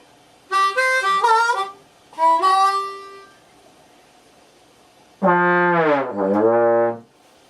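Brass-like music: two quick phrases of stepped notes, then a long low note that slides down in pitch.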